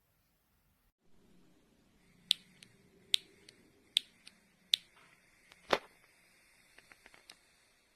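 A series of sharp clicks at about one every second, with a heavier knock in the middle and a few lighter ticks near the end, over a faint low hum.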